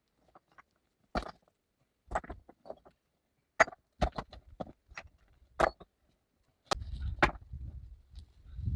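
A series of irregular sharp knocks and taps, like wood being struck or handled, about a dozen over six seconds. About two-thirds of the way in, a steady low scuffing, rustling noise starts, with further knocks on top.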